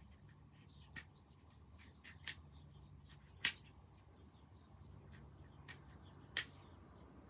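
Sharp, short clicks of puzzle-ball pieces being handled and fitted together, about five at irregular intervals, the loudest about three and a half seconds in.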